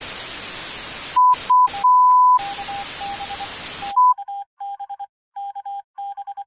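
Television static hiss broken by steady test-tone beeps: two short beeps, then a longer one, followed by shorter, lower beeps. The static cuts off at about four seconds, and a string of rapid electronic beeps in short clusters follows.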